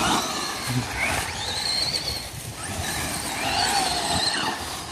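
Electric RC car motors whining, the pitch rising and falling as the cars speed up and slow down, over a steady rushing noise.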